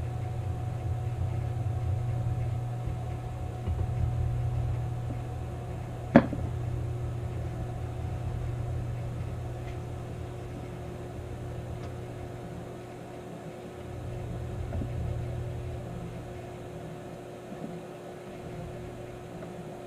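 Small CNC milling machine's axis drive motors running as it moves the table through an automatic vise-probing cycle: a steady low hum with a faint whine, swelling twice as the axes move. One sharp click about six seconds in.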